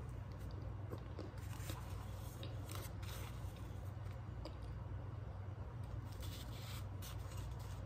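Chunks of compressed cornstarch crumbled between fingers and chewed: irregular squeaky, lightly crunchy crackles over a steady low hum.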